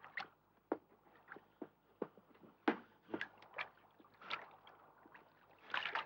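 Scattered small splashes, drips and knocks of sea water and wet bodies against a small boat as a soaked person is pulled out of the sea and aboard.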